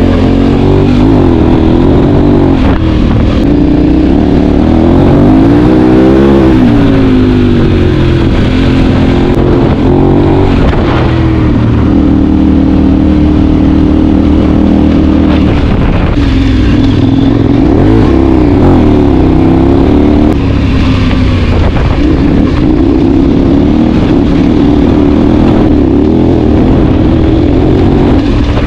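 KTM 1090 Adventure R's V-twin engine, fitted with a Remus exhaust, heard from on board while riding. The revs climb and drop again and again as the throttle opens and closes, with the biggest rise and fall about five to seven seconds in.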